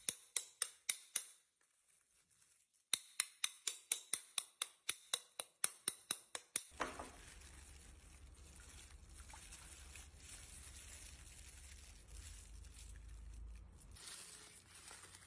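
Rapid, evenly spaced sharp clicks, about four to five a second, in two runs with a short pause between, then a faint low hum.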